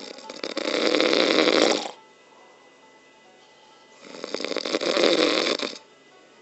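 Loud snoring: two long, rattling snores about four seconds apart, each lasting nearly two seconds.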